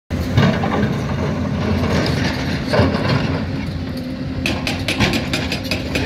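Heavy diesel engines of a dump truck and an excavator running steadily. From about three-quarters of the way through, a fast run of clicks and knocks joins them.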